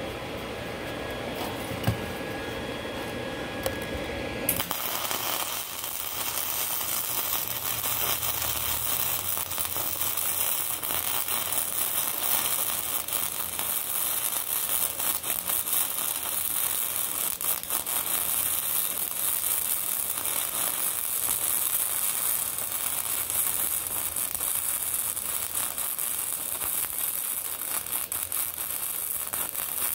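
Stick-welding arc crackling steadily as nickel rod is run onto a cracked cast-iron engine block. The arc starts about four and a half seconds in, after two sharp clicks.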